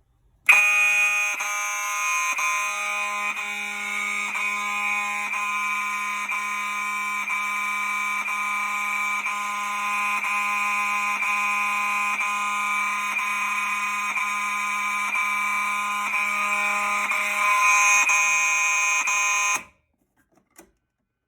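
Gentex horn strobes sounding a continuous, very loud electronic horn in fire alarm, set off by the smoke detector. It has a brief skip about once a second, which comes when the jumper is out of the System Sensor sync module. The horns start about half a second in and cut off suddenly near the end.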